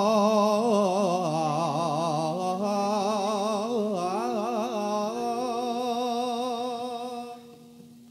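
Male Javanese singer's unaccompanied-style solo vocal line, slow and melismatic with a strongly wavering, ornamented pitch, over a steady held low note. The voice stops near the end, leaving only the held note.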